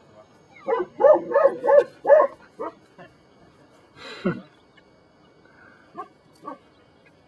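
Belgian Malinois barking in a quick run of about six barks, then a few scattered single barks and yelps, one with a falling pitch.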